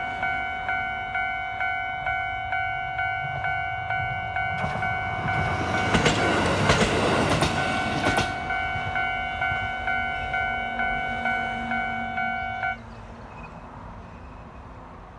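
Level-crossing warning bell ringing in a steady rhythm, about one and a half strokes a second, while a 150-series diesel railcar passes for about three seconds with a rush of noise and wheel clacks over rail joints. The bell stops abruptly near the end, leaving the fainter drone of the departing railcar.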